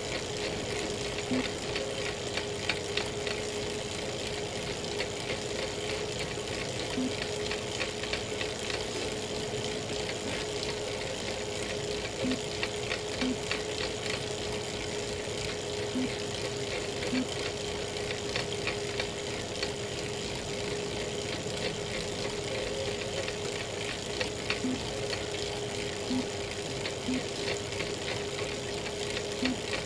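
Elite Real Turbo Muin B+ bike trainer running under steady pedalling: a constant whine with a dense, continuous crackling over it and a few short low knocks at irregular intervals. The crackling is the fault noise the owner hears from the trainer at any cadence once power goes over 200 watts.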